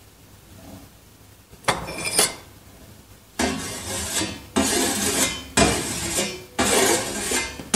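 A metal blade scraped with a bow-like stick in steady, rhythmic strokes about once a second, each starting sharply and fading, with a faint metallic ring. It is played live on stage as a sound effect.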